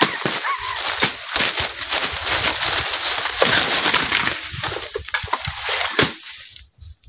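Loud rustling and crackling of leaves and brush as weeds and undergrowth are pulled and cleared by hand, with a few sharp snaps of twigs, dying away near the end.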